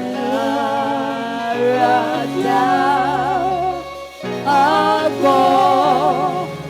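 Gospel worship song: a voice sings long notes with wide vibrato over held low accompaniment, with a short pause about four seconds in.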